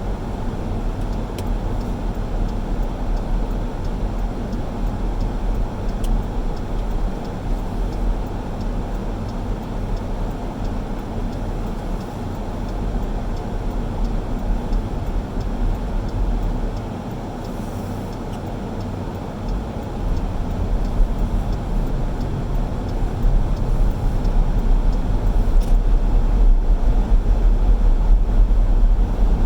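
A car driving, a steady low rumble of engine and tyre noise that gets louder about twenty seconds in.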